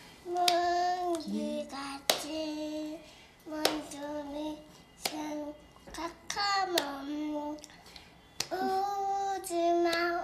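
A two-year-old girl singing a song unaccompanied in short, held notes, with an adult clapping along about every one and a half seconds.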